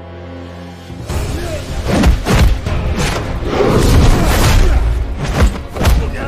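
Film fight soundtrack: a held music chord, then from about a second in, loud driving score music with several punch and kick impact sound effects, booming hits near the middle and end.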